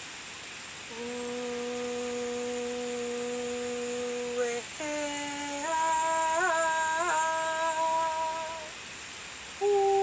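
A woman humming long, steady held tones: about a second in, a low note held for several seconds, then a slightly higher one, then a note with two brief wavers, each sustained before breaking off. Just before the end a higher, purer steady tone sets in.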